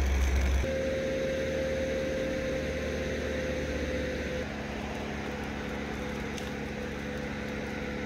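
Truck-mounted crane's engine running steadily while it lifts a load, with a steady whine that stops about four and a half seconds in, leaving a lower hum.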